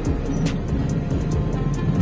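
Background music with a beat, laid over the running noise of a moving passenger train.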